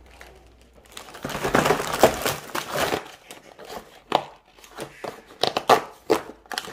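Snack packaging being handled and opened: a cardboard snack box torn open and plastic-wrapped packs crinkling. After about a second of quiet comes a dense rustle lasting a couple of seconds, then separate sharp crackles.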